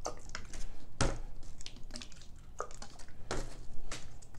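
Scattered clicks and knocks of plastic cups and a stir stick as acrylic pouring paint is mixed in a plastic cup, the two loudest knocks about a second in and a little past three seconds.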